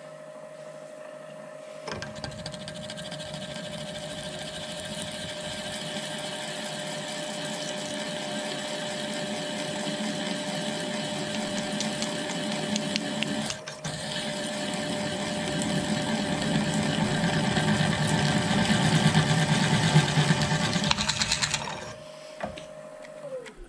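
Floor-standing drill press with a VFD-driven motor, cutting a half-inch hole through 3/8-inch steel plate: a steady whine under a grinding cutting noise that pauses briefly about halfway. The cutting stops near the end, and the whine falls in pitch as the motor winds down.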